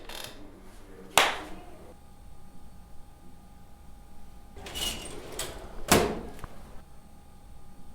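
Added foley effects: a sharp bang about a second in, then a few knocks and a second loud bang around five to six seconds in, over a faint steady hum.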